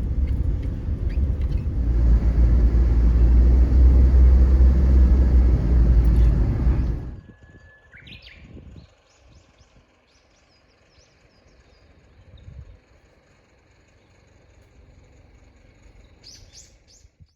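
Steady low rumbling noise that cuts off abruptly about seven seconds in, followed by quiet outdoor ambience with a few faint bird chirps.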